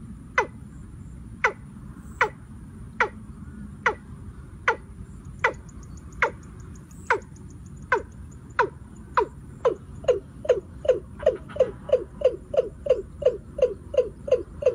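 Watercock calling: a series of low notes, each falling in pitch, widely spaced at first and speeding up to about three a second in the second half.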